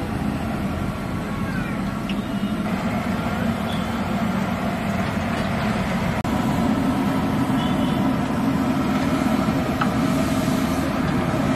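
Roadside street noise with passing traffic, mixed with oil sizzling in a large kadhai as batter-coated vadas deep-fry. The sound changes abruptly about halfway through and is a little louder after.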